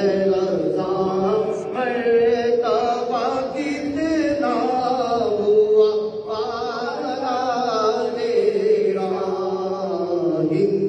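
A man singing a manqabat, a devotional praise poem, solo into a microphone, with long wavering melodic lines and no breaks.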